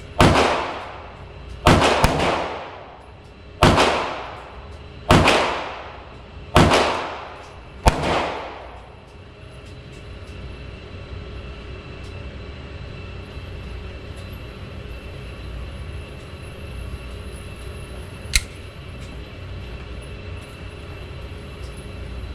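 Six 9mm pistol shots from a Glock 19, spaced about a second and a half apart, each followed by a short echoing decay. After the last shot comes a steady background hum, broken by a single sharp click about eighteen seconds in.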